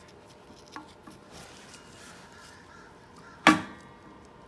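Worn front wheel hub bearing assembly with play in it, spun and rocked by hand in its brake rotor, giving a faint rough running with a few light clicks. A single sharp metallic knock sounds about three and a half seconds in.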